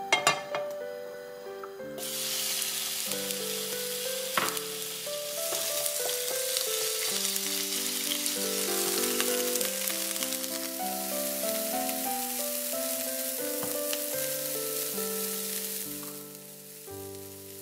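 Diced chicken frying in oil in a nonstick pan, sizzling steadily and stirred with a spatula. The sizzle starts suddenly about two seconds in and cuts off near the end.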